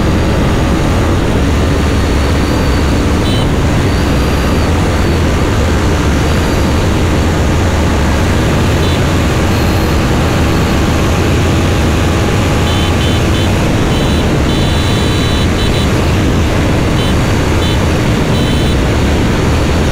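Loud, steady wind rush over a motorcycle-mounted camera microphone at highway speed, with the KTM Duke 390's single-cylinder engine running under it at high revs.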